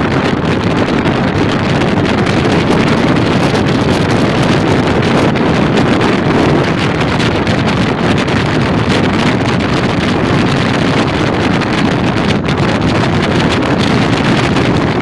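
Steady, loud rush of wind buffeting the microphone, mixed with tyre and road noise from a vehicle moving at speed.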